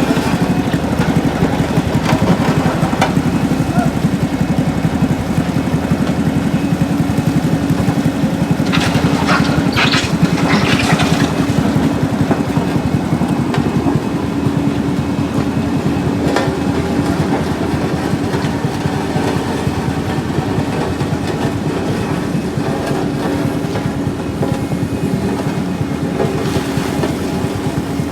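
Vehicle engine running steadily, with a few short, sharp sounds about nine to eleven seconds in.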